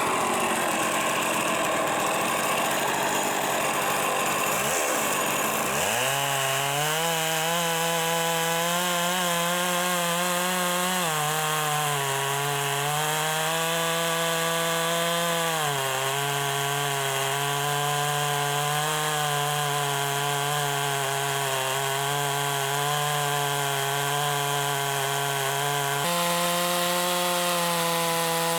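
Chainsaw running at high revs through wood, its steady engine note dipping and shifting in pitch several times as it loads in the cut.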